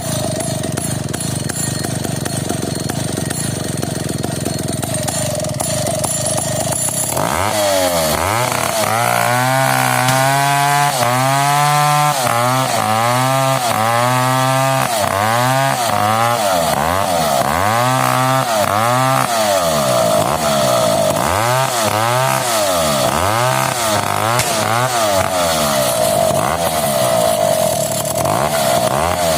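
Stihl 070 two-stroke chainsaw running at a steady speed, then from about seven seconds in its engine speed rising and falling over and over, about once a second, as it works through the cut in a coconut palm trunk.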